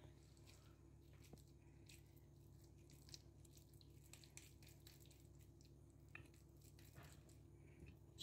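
Near silence with a low steady hum, broken by a few faint, soft squishes and light taps as raw minced-meat balls are pressed and set into a glass baking dish.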